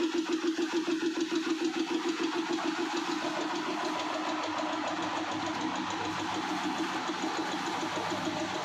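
A machine motor running with a steady hum and a regular pulsing throb, about five or six beats a second, that evens out after about three seconds.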